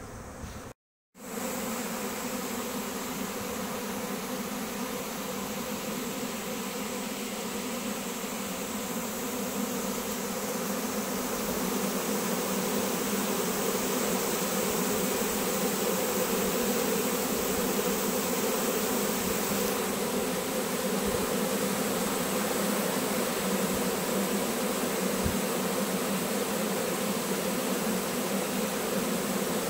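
A swarm of honey bees buzzing around a hive box as it settles onto the frames, a dense steady hum that starts about a second in and grows a little louder partway through.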